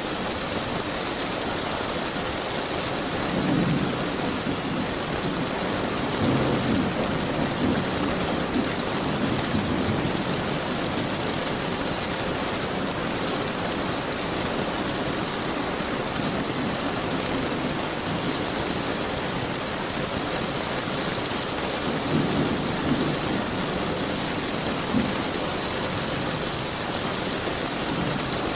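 Steady rain falling, with low rolls of distant thunder: a long rumble starting about three seconds in and lasting several seconds, and a second, shorter one about twenty-two seconds in.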